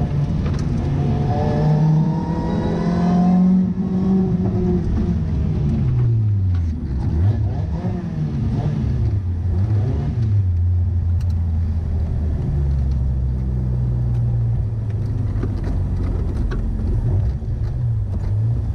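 Lotus Elise's four-cylinder engine heard from inside the cabin, revs climbing for the first few seconds, then falling away as the driver lifts off and the car slows from about 46 mph. The revs waver through the gear changes and settle into a low steady run as the car rolls along at walking pace.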